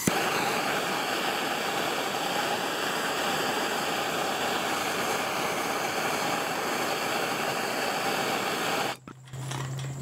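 Handheld gas torch burning with a steady hissing rush as its flame plays on a smart padlock. It cuts off suddenly about nine seconds in, and a low steady hum follows.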